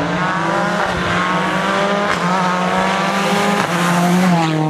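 World Rally Car engine accelerating hard through the gears: the pitch climbs and drops back at three quick upshifts about a second and a half apart, then falls sharply near the end as the car brakes and shifts down.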